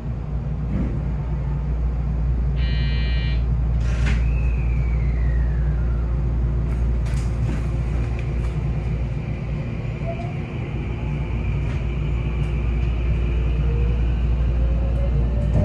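Train cab: a 223 series 2500 electric train pulling away, its Toshiba IGBT-VVVF inverter whining over a steady running rumble. After a brief electronic tone, a whine falls in pitch, a steady high tone settles in, and then motor tones climb in pitch as the train gathers speed.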